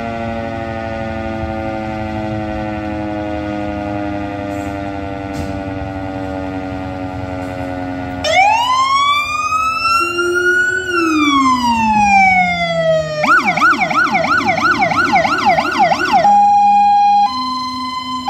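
A fire station's alarm siren winding down in a slow falling tone. About eight seconds in, a fire engine's electronic siren starts with one long wail that rises and falls, switches to a fast yelp of about three sweeps a second, and near the end changes to a two-tone hi-lo.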